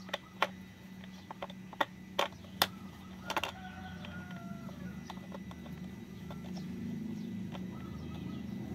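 Sharp plastic clicks and taps as a toy plastic screwdriver works a plastic screw in a toy train's plastic wheel, about half a dozen in the first three and a half seconds. A faint drawn-out squeak follows, over a steady low hum.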